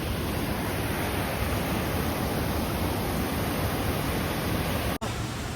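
Steady rushing of a fast-flowing river, a dense even noise. It drops out for an instant about five seconds in, then carries on.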